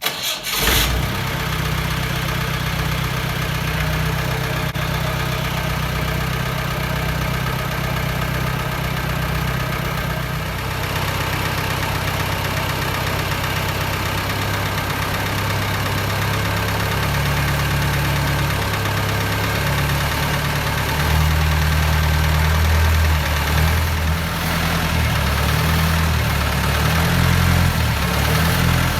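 Jeep engine starting right at the start and settling into a steady idle, run to warm up after the jeep has stood unused for many days. The idle grows a little louder for a couple of seconds about two-thirds of the way through.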